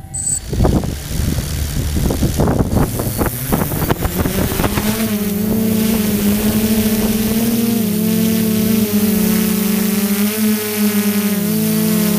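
DJI F550 hexacopter's six electric motors and propellers spinning up for take-off, with gusty buffeting and a rising pitch over the first few seconds, then settling into a steady buzzing hum that wavers slightly in pitch as it flies.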